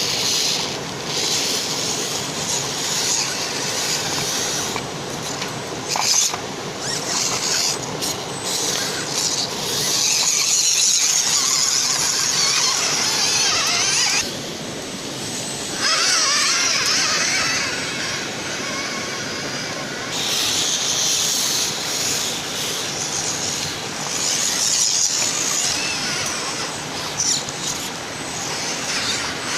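Small electric RC off-road trucks driving, with a high motor and gear whine that rises and drops away in spells of a few seconds.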